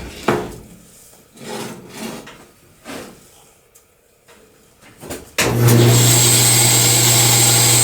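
Wooden pieces being handled with a few scattered knocks, then an older Craftsman bandsaw comes in suddenly about five seconds in and runs steadily and loudly, with a low hum and a high whine.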